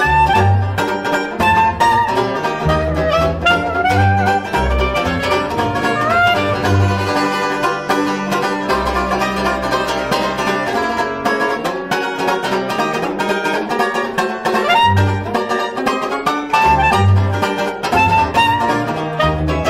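Small trad-jazz band: clarinet playing the melody over strummed banjo and double bass. About halfway through, the clarinet stops and the banjo carries the tune with the bass.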